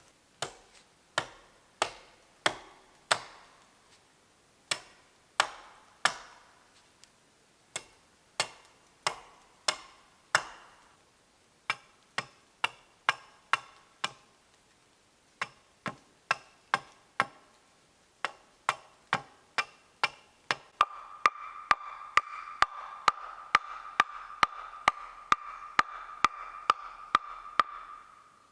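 Repeated sharp chopping knocks, about one or two a second, each with a short ring. From about three-quarters of the way through, a steady high tone sounds under the knocks.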